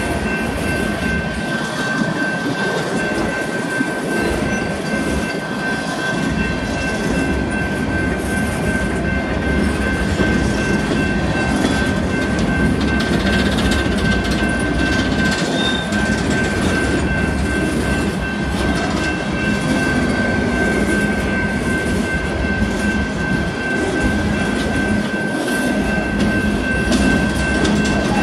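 Empty coal cars of a long freight train rolling past, a steady rumble and clatter of steel wheels on the rails, with a thin, steady high-pitched whine running through it.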